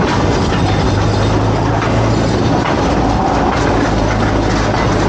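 Motorized rail vehicle running along the track: a steady engine drone with the noise and light clatter of wheels on the rails.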